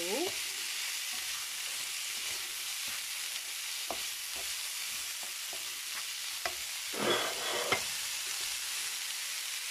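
Chopped cabbage, onion and green peas sizzling in oil in a nonstick frying pan, with scattered clicks and scrapes as a plastic spatula stirs them, one louder scrape about seven seconds in.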